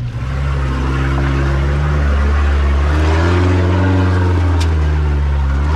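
Four-wheel-drive's engine working at low revs as it crawls over rough off-road ground. It runs steadily, with its pitch shifting a little near the middle.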